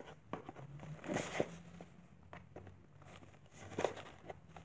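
Tape on a cardboard box being cut and pried at: scattered clicks, scrapes and short rustles, the louder ones about a second in and near the end.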